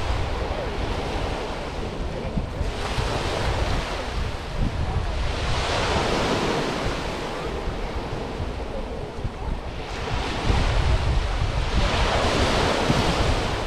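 Sea waves breaking and washing up a sandy beach, in two swells of surf, the first about three seconds in and the second about ten seconds in. Under them runs a steady low rumble of wind on the microphone.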